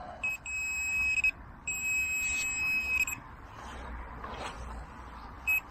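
Handheld metal-detecting pinpointer buzzing over a buried target: a steady high electronic tone in two stretches of about one and one and a half seconds, with a short beep near the end. The target is one the detectorist takes for a pound coin.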